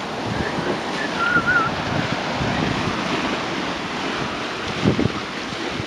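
Choppy waves washing and sloshing against a concrete sea wall, with wind buffeting the microphone.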